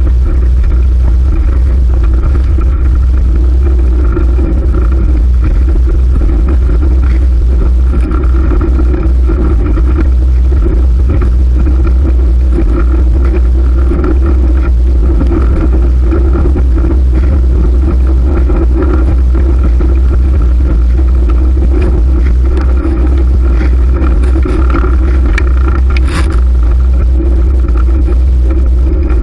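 Steady, loud rumble of wind and road noise while riding a fixed-gear bicycle, with one brief click about 26 seconds in.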